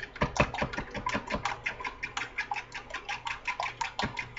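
Eggs, milk and cinnamon being whisked by hand in a small plastic bowl: quick, even clicks of the utensil against the bowl, about five or six a second.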